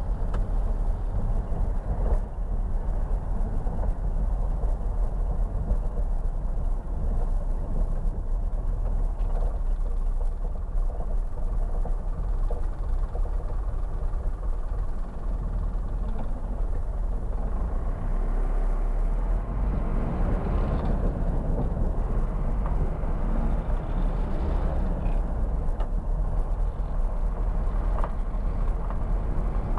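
Mercedes-Benz Atego truck's diesel engine and road noise heard from inside the cab while driving, a steady low rumble. A brief swell of louder, brighter noise comes about two-thirds of the way through.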